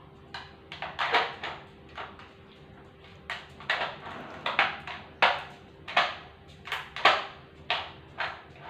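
Plastic dog puzzle feeder clattering as a poodle works its sliding covers and pieces with a paw: a string of irregular short knocks and clicks.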